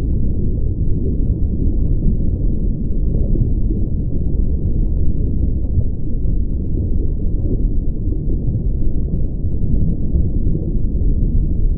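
A steady, deep rumbling drone with no distinct events in it.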